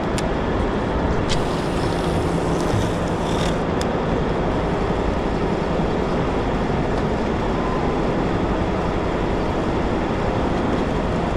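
Boat under way: a steady rushing of motor, wind and water noise.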